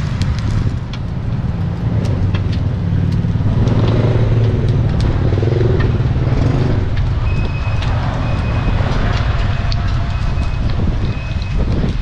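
Bánh tiêu dough deep-frying in a basin of hot oil, with scattered crackles and sizzling, over the low rumble of street traffic.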